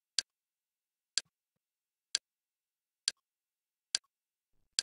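Six short, sharp clicks about one a second, each one stepping a menu highlight down one item in a list.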